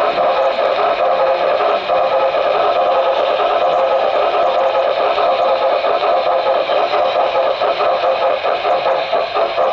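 HO-scale model train running along its track, heard close up from a camera riding on it: a steady whir and rattle of motor, gears and wheels on the rails.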